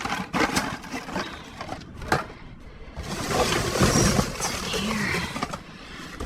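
Rummaging through trash in a dumpster: scattered knocks and clicks, then, about three seconds in, a louder rustling of bags and debris being shifted that lasts a couple of seconds.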